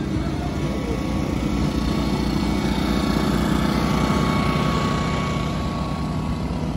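Steady engine drone that grows a little louder towards the middle and then eases off slightly.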